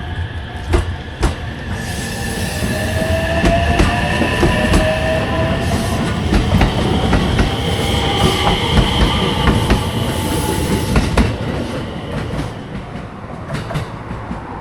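A train passing close by: its wheels clack irregularly over rail joints and give long, slightly wavering squeals. It grows louder toward the middle and then fades.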